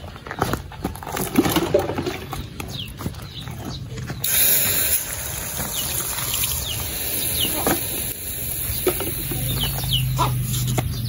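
Water poured from a plastic jug splashing over a bamboo sinker-casting mould and bricks, a steady hiss that starts suddenly about four seconds in. Before it, a few light knocks and clicks of the mould being handled.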